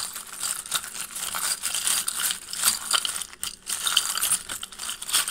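A hand rummaging through a collection of small metal charms, which jingle and clink against one another in many quick little clicks.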